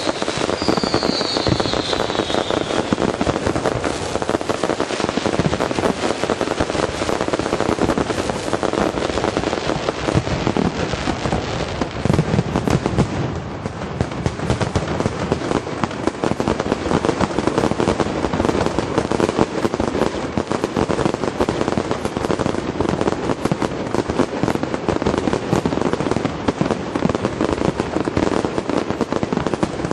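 Fireworks finale: a dense, continuous barrage of aerial shell bursts and crackling stars. High whistles slide through the first couple of seconds.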